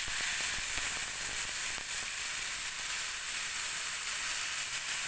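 Marinated beef slices sizzling steadily as they go into hot oil with browned garlic in a wok, with a few faint clicks in the first two seconds.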